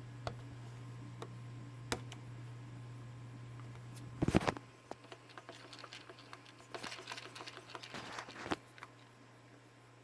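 Small metal parts of a toy steam engine being handled during disassembly: a few light clicks, a loud clatter about four seconds in, then a run of small clinks and rattles.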